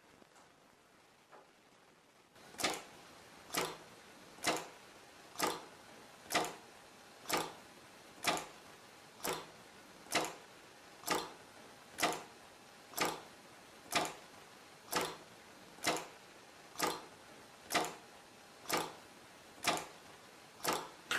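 Festo pneumatic linear drive cycling back and forth under solenoid-valve and limit-switch control, giving a sharp click about once a second as each stroke ends and the valves switch over. The clicking starts about two and a half seconds in.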